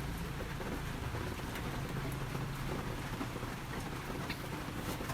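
Steady rain-like hiss with a few faint clicks.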